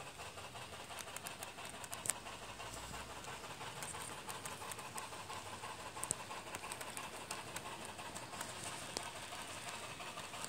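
Model freight train cars rolling past on roadbed track: a steady clatter of small wheels on the rails, with a few sharp clicks, the loudest about two seconds in.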